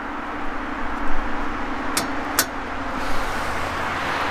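Highway traffic passing close by: a steady rush of tyres and engines that swells in the middle. Two sharp clicks come about two seconds in.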